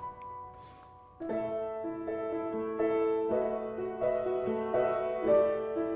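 Piano playing an instrumental interlude of a musical-theatre song: a soft held chord dies away, then about a second in the piano comes back louder with a steady run of chords.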